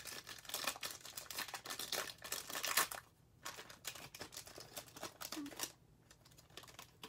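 Foil wrapper of a Bowman Chrome trading-card pack being torn open and crinkled by hand. It crackles in two spells with a short pause about three seconds in, then goes quiet near the end.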